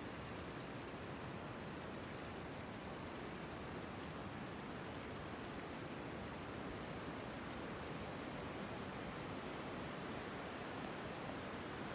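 Steady rushing of a mountain stream, with a few faint, short high chirps about halfway through and again near the end.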